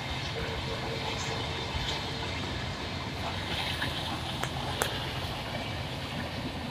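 Passenger coaches of the Suvidha Express rolling past at a distance: a steady low rumble of wheels on the track, with two sharp clicks about four and a half seconds in.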